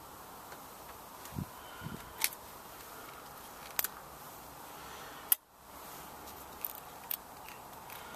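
A few light clicks and taps, with two short dull knocks early on, as the bare pistons and connecting rods inside a stripped-down Copeland compressor are handled, over a faint steady hiss. The sound cuts out briefly about five seconds in.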